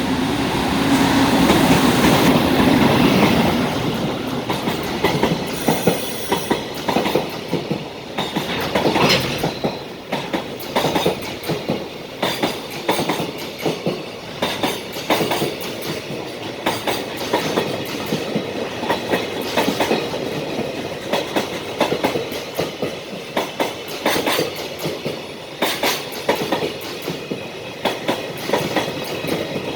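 A container freight train passing close by: the loudest part, with a low hum, comes in the first few seconds as the EF510 electric locomotive goes past, then a long string of container flatcars follows with a steady rhythmic clickety-clack of wheels over the rail joints.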